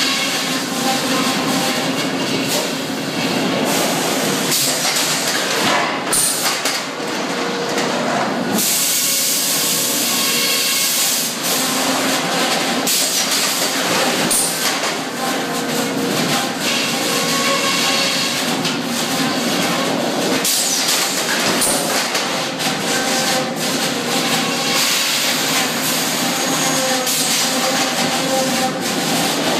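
Sawmill head rig running: circular headsaw and shotgun-fed carriage machinery with a steady loud hum and hiss, broken by a few sharp knocks and a brighter hissing stretch near the middle.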